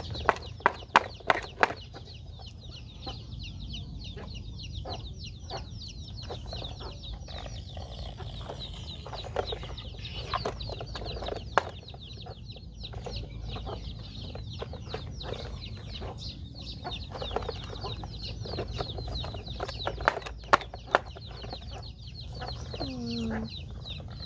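A plastic toy excavator bucket knocking and scraping against a toy dump truck's plastic bed as dirt is scooped and dropped in, heard as clusters of sharp clicks and knocks. Behind it runs a steady high chirping, and a chicken clucks with a falling call near the end.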